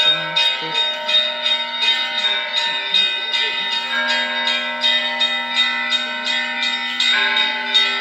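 Russian Orthodox church bells rung in a quick, even rhythm: small bells struck about three times a second over the steady hum of larger bells. A deeper bell comes in about four seconds in and is struck again near the end.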